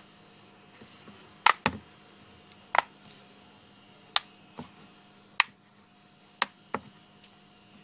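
A series of sharp clicks and taps from small hard objects, about nine at irregular intervals, some in quick pairs, over a faint steady hum.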